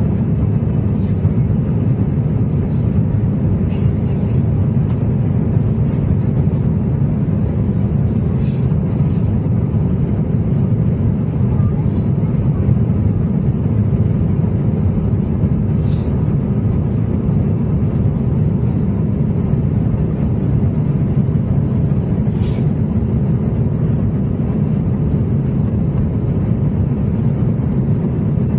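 Steady cabin noise inside an Airbus A321 in flight after takeoff: the engines and the airflow make an even, low rumble that holds at one level, with a few faint brief clicks on top.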